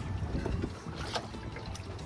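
Small fishing boat afloat: a steady low rumble with wind on the microphone, and a couple of brief knocks about half a second and a second in.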